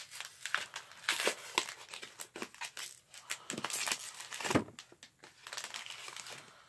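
Foil wrapper of a Pokémon booster pack crinkling and tearing as it is ripped open and pulled apart by hand, in irregular crackles that come loudest about a second in and again around four seconds in.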